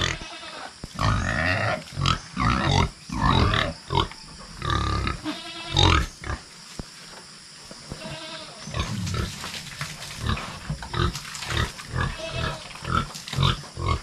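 Pigs squealing in a string of short, loud cries, some higher and pitched. The owner says they are crying because they have just been shut in the pen.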